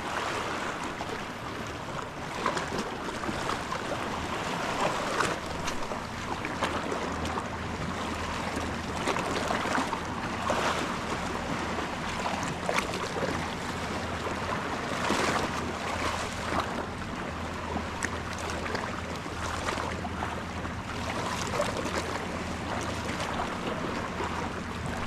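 Small sea waves lapping and washing against shoreline rocks, in an uneven wash with short splashy surges every second or two, over a faint steady low hum.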